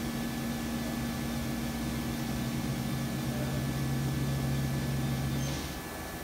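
Haas SL-20T CNC lathe spindle running at 500 RPM with a steady hum, which stops near the end.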